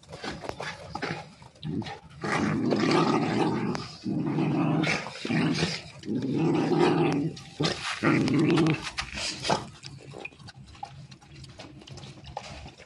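A dog growling: four long growls of a second or more each, starting about two seconds in and stopping near nine seconds, with lighter scuffling clicks around them.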